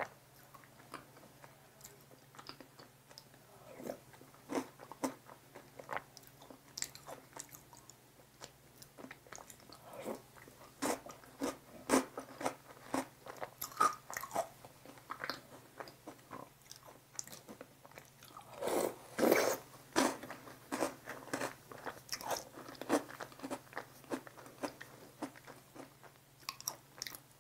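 Maltesers soaked in cream being bitten and chewed: a scatter of short, crisp crunches and wet chewing, with a denser, louder run of crunching about nineteen seconds in.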